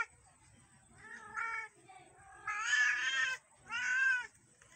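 Cat meowing three times, the middle call the longest.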